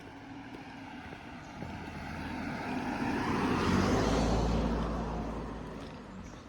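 A car passing by on the road. Its engine and tyre noise swell to a peak about four seconds in, then fade away.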